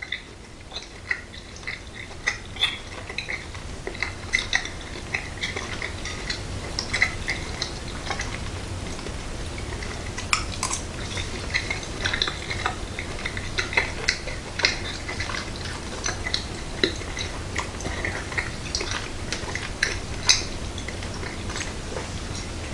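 A metal fork clinking and scraping on a plate as pork loin is cut and eaten: many short, light clinks at irregular intervals over a faint low hum.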